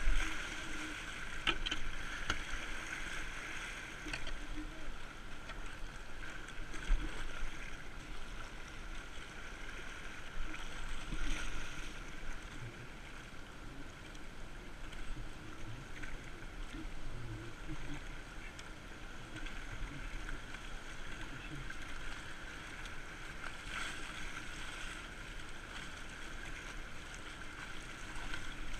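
Fast river current rushing and washing around a kayak, with a few sharper paddle splashes near the start and about seven seconds in.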